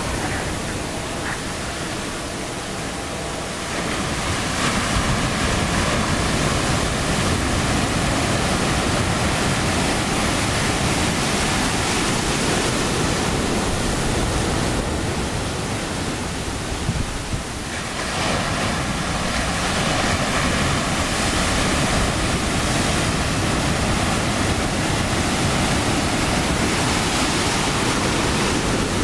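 Ocean surf breaking and washing over whitewater: a steady rushing noise that eases slightly twice before building again.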